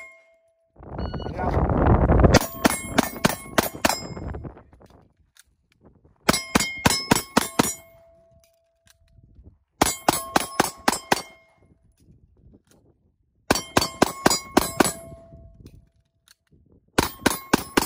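A handgun fired in quick strings of about five or six shots, with each string ending and a pause of about two seconds before the next. The steel silhouette targets ring with a clear, lingering tone as they are hit. About a second in there is a loud low rush of noise, before the first string.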